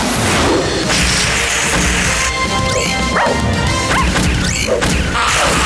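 Cartoon action sound effects over dramatic background music: quick whooshes, several sharp smashes and thuds, and a water-cannon spray.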